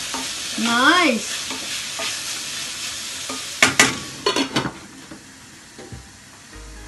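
Bacon and mushrooms sizzling in a metal pan as a wooden spatula stirs them. About three and a half seconds in come several sharp metal clanks as the lid is set back on the pan, and the sizzle fades under it.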